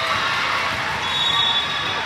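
Basketball game sounds: a ball bouncing on the court amid crowd chatter.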